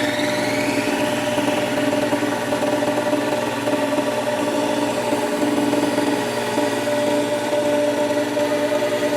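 CNC machine tool running steadily: a constant mechanical hum with two held tones in the mid range.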